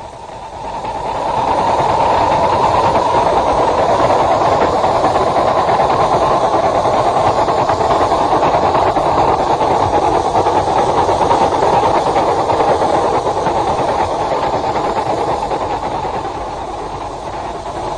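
A steady, loud rushing noise that swells up about a second in and eases slightly near the end.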